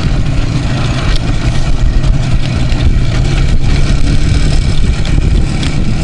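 Two-stroke IZh motorcycle engine running steadily as the bike rides along, heard from the rider's seat as a continuous low rumble.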